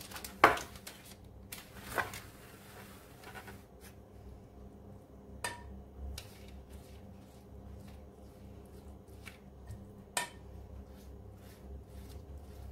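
Soft brushing of a silicone pastry brush over filo-like pastry rolls and baking paper, broken by a few sharp clinks and knocks of the brush and the small butter pan. The loudest clink comes about half a second in, and others come near two seconds, five and a half seconds and ten seconds.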